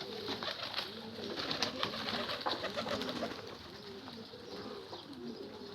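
Domestic pigeons cooing, one rolling coo after another, with faint clicks in between.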